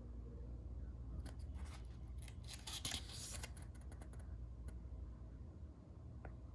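Watch packaging being handled and opened: a run of crisp clicks and crackles lasting about three seconds, densest in the middle, then a single click near the end.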